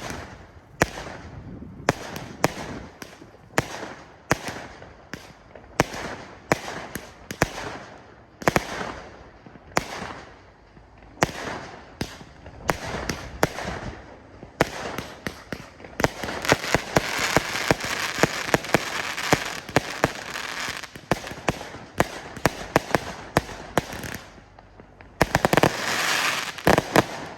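Klasek Profi Show 200-shot firework cake with 20 mm tubes firing: a string of sharp shots, each trailing off in a burst, a little faster than one a second. There is a stretch of dense crackling in the middle, and near the end a rapid volley of shots that stops suddenly as the cake finishes.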